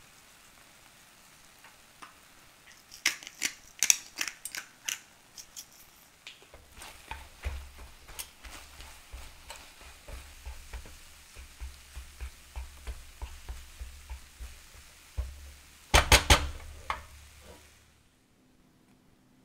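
Silicone spatula stirring and scraping soft scrambled eggs in a nonstick frying pan, with light sizzling and many small ticks. A run of sharp clicks comes about three seconds in, and a burst of loud clicks and knocks comes about sixteen seconds in.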